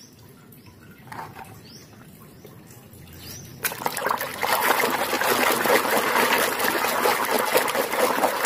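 A hand sloshing and scrubbing in a basin of muddy, foamy water: soft swirling at first, then from about three and a half seconds in, steady, busy splashing and swishing.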